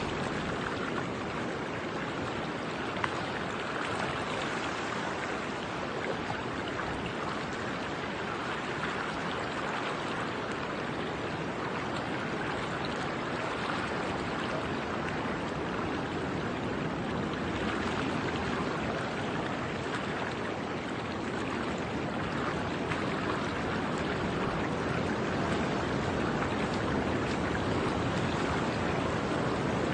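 Ocean surf breaking on rocks: a steady rushing wash of water that grows a little louder in the last third.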